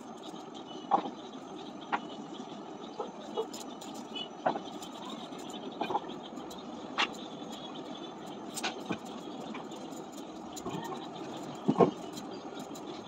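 Scattered light knocks and clatter of small objects being picked up and set down on a wooden dressing table's shelves while it is dusted and wiped with a cloth, over a steady background hum. The loudest knocks come about a second in and near the end.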